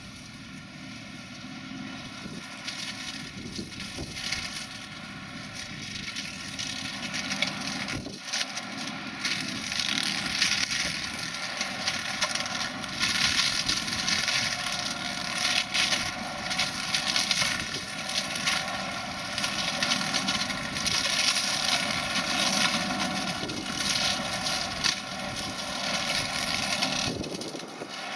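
Renault 155.54 tractor running steadily while its tractor-mounted flail hedge cutter shreds hedge branches. The dense crackling of the cutting gets louder from about nine seconds in.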